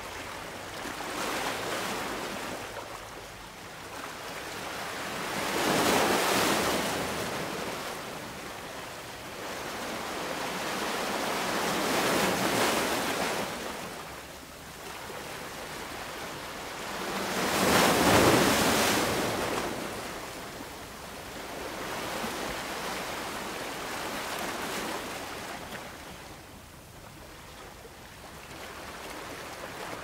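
Sea surf washing in and breaking, swelling and falling back every few seconds, with the biggest surges about six, twelve and eighteen seconds in.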